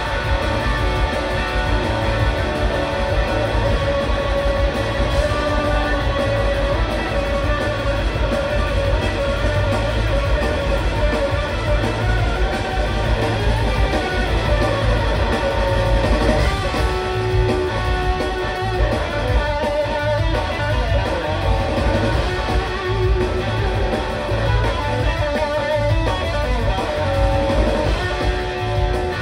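Live blues-rock band playing an instrumental passage, with electric guitar to the fore over the rest of the band.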